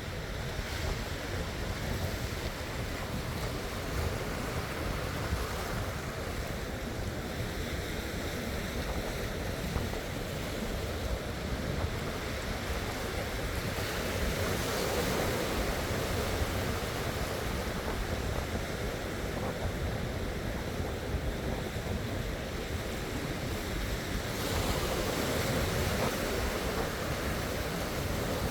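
Ocean waves washing onto the shore, a steady surf wash that swells louder about halfway through and again near the end, with wind rumbling on the microphone.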